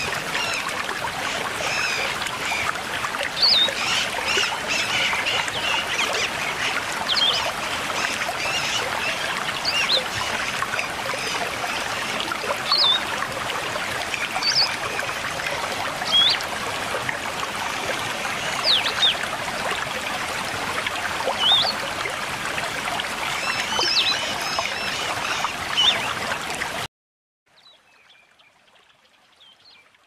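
Steady rushing of stream water with birds chirping over it in short, scattered calls. About 27 seconds in, the sound cuts off abruptly to a faint hush.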